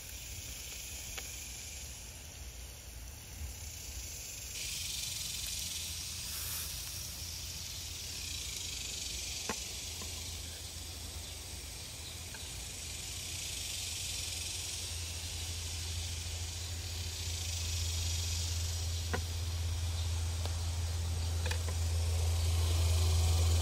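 Skirt steak sizzling on a grill over a wood fire: a steady high hiss with a few sharp pops. A low rumble grows louder toward the end.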